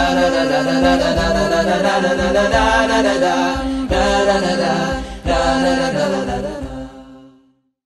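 Intro music of chanting voices with a regular low beat; it fades out and stops just before the end.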